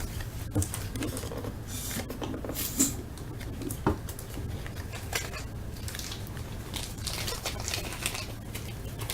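Light rustling and scattered clicks of trading cards being handled and flipped through one by one.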